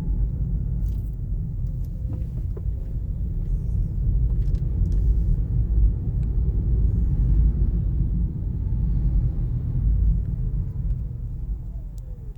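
2019 Kia Niro driving, with steady low road and tyre rumble. Near the end a faint whine falls in pitch as the car slows and the rumble dies down.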